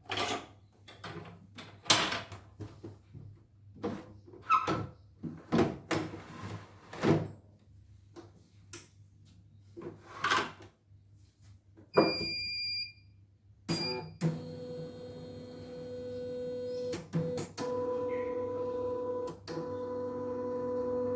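CNY E900 computer embroidery machine being handled with clicks and knocks, then giving two short electronic beeps. Its motors then start up with a steady whine and hiss, which dips twice.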